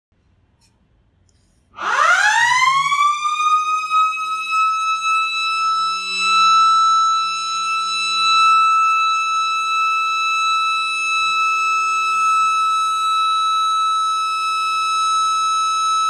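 Mosque's Ramadan siren sounding, the signal at suhur and iftar for when to stop eating and when to break the fast. After near silence it starts about two seconds in, its pitch sweeping quickly upward and then holding a loud, steady high tone.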